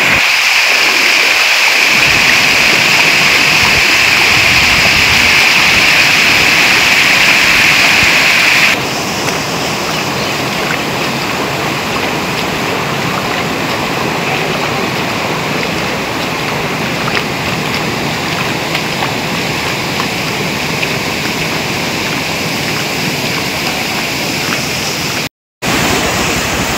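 Muddy river floodwater rushing and churning in a steady torrent. It drops to a lower level about nine seconds in and cuts out for an instant near the end.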